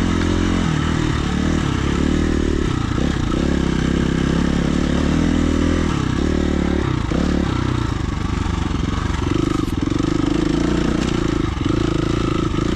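Dirt bike engine running while riding a trail, its pitch rising and falling with the throttle.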